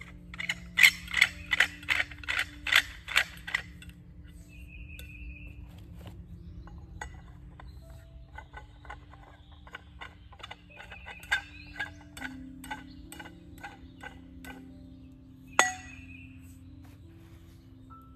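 Freyr trellis tubes and fittings clinking and knocking together as they are handled and fitted. It starts with a quick run of about ten sharp clinks, continues with lighter scattered ticks, and ends with one sharp clank near the end.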